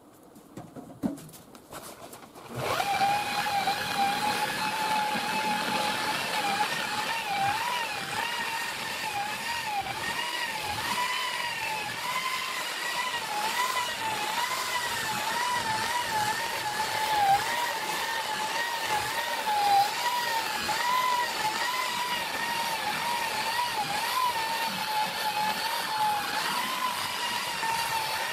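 Harbor Freight Warrior 10-amp 7-inch variable-speed rotary polisher with a wool buffing pad, switched on about two and a half seconds in and then running steadily as it buffs compound into sanded automotive clearcoat. Its motor whine wavers up and down in pitch as the pad is pressed and moved over the panel.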